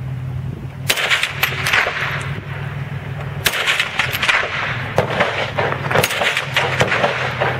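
M1 Carbine (.30 Carbine) firing single shots from the prone position, a few sharp reports a second or more apart, each with a short ringing tail.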